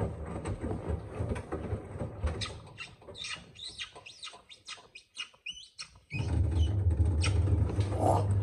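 Washing machine running on spin with a low steady hum that fades over the first half, with high squeaks and clicks. About six seconds in, after a brief near-silence, a loud steady hum cuts in suddenly.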